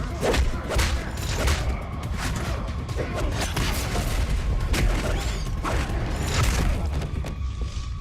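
Fight-scene soundtrack from a TV drama: a rapid series of hard hits and booms over a music score.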